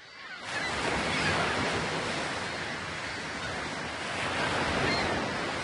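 Ocean surf: a steady rushing wash of waves that fades in over about the first second and swells gently.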